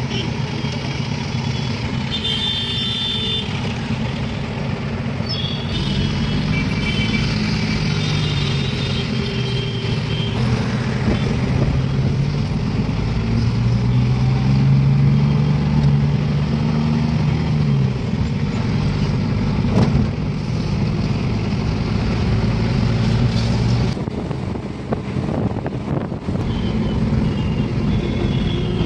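Cabin sound of a Hindustan Ambassador taxi driving through city traffic, its engine running with a steady low hum. Other vehicles' horns toot several times: a couple of seconds in, again between about six and nine seconds, and near the end.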